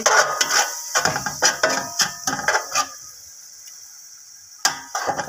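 Metal slotted spatula scraping and clicking rapidly against the inside of a metal cooking pot while stirring green masala paste frying in ghee, over a steady sizzle. The scraping goes quiet after about three seconds, then a few sharp knocks of the spatula on the pot come near the end.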